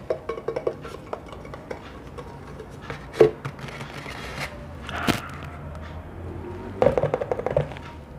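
ASMR tapping on hard, ringing objects: quick runs of taps at the start and near the end, with single sharper knocks in between and a brief swish before the second knock.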